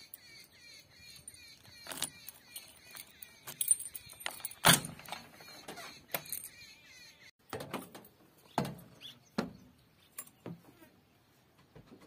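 Knocks and clicks from a JCB backhoe loader's cab door and cab as it is opened and closed and the operator climbs in, with the engine not yet running. The loudest knock comes about four and a half seconds in, and several sharper knocks follow between about eight and nine and a half seconds.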